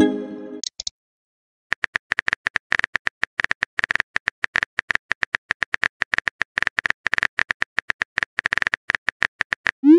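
Phone keyboard typing sound effect: rapid, irregular clicks for about eight seconds, starting about two seconds in. A short message chime sounds at the very start.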